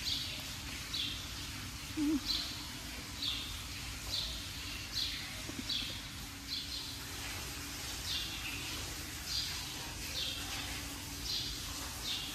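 A bird repeating a short, high, slightly falling chirp roughly once a second, over a steady low background hum.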